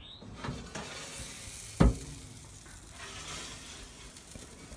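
Meat sizzling on the hot grates of a Lonestar Grillz insulated cabinet smoker, a steady hiss, with a few knocks as the racks are handled, the loudest a heavy knock about two seconds in.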